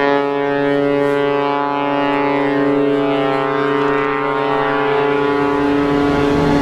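Cruise ship's horn sounding one long steady blast, starting suddenly and held at a single deep pitch.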